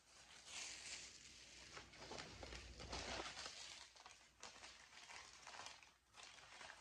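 Faint crinkling and rustling of a thin plastic bag and paper wrapping as an item is pulled out and unwrapped by hand, in irregular bursts with short pauses.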